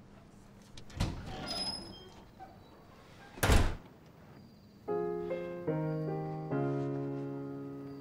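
A thump about a second in with a rustling tail, then a louder, sharper thump in the middle. Soft piano music then comes in with three slow, held chords.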